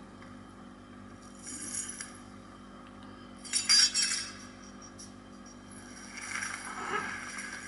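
Film sound effects: soft rustling, then a bright metallic clink and jingle about three and a half seconds in, like chain mail and metal scales shifting as a body slumps forward. A softer rustle follows near the end, over a low steady hum.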